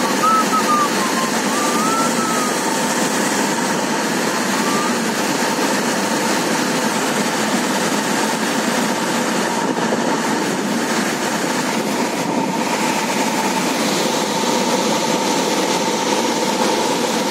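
Steady rushing roar of a huge volume of muddy floodwater pouring through Salal Dam's open spillway on the Chenab River and churning into spray below.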